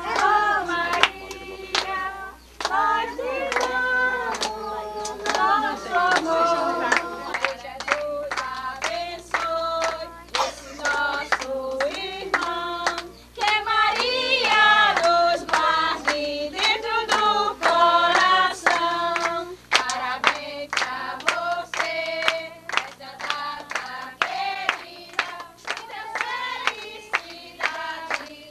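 A group of adults and children singing a song together, with hands clapping along in a steady rhythm.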